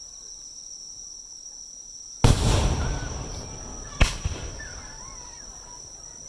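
Two aerial firework shells bursting: a loud boom about two seconds in that rolls on for over a second, then a sharper bang about two seconds later. A steady high insect chirring runs underneath.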